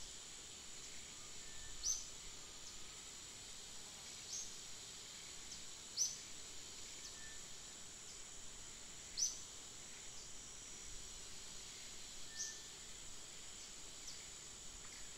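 Forest ambience: a steady high-pitched insect drone, with a short sharp chirp every two to three seconds, six in all.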